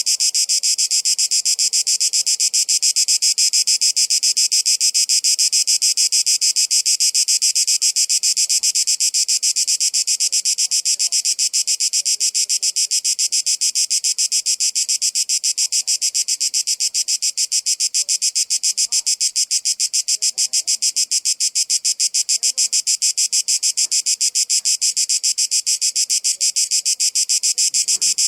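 Cicadas buzzing: a loud, steady, high-pitched drone with a rapid, even pulse that holds unbroken throughout.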